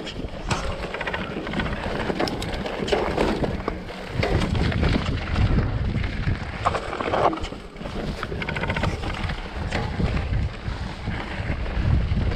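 Mountain bike descending a rocky gravel trail: wind buffets the camera microphone while the tyres roll over stones, with frequent short rattles and knocks from the bike over the rough ground.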